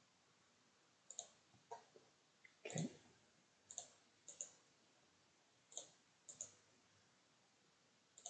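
Faint computer mouse button clicks, scattered and sometimes in quick pairs, as wires are placed and a right-click menu is opened; the loudest comes a little under three seconds in.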